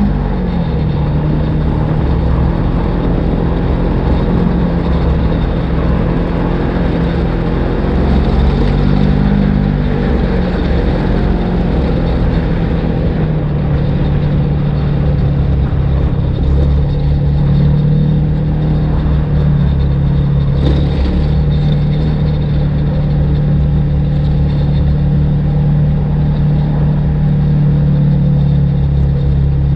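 Polaris RZR XP1000 side-by-side's twin-cylinder engine running steadily while under way at low speed, its note rising and falling back once about a third of the way in.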